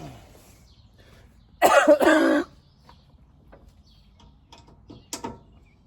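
A person clearing their throat once, briefly and loudly, followed by a few faint clicks.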